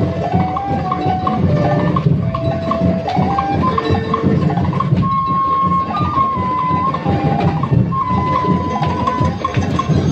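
Dance music with busy percussion and drumming under a melody of held notes moving step by step.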